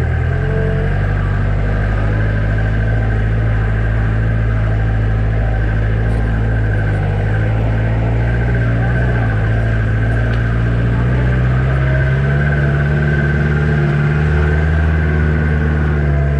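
Jeep engine running while driving, steady, with a thin steady whine above it; the engine note rises a little about twelve seconds in.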